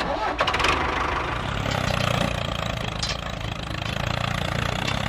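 A tractor engine running steadily with a low rumble, as the engine sound of a model mini tractor driving along pulling a loaded trailer.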